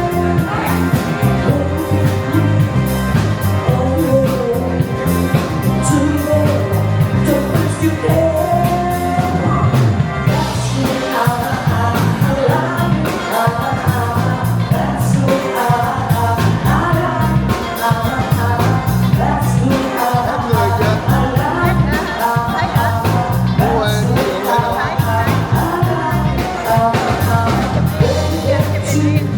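Upbeat rock-and-roll style music with a singer and a steady beat.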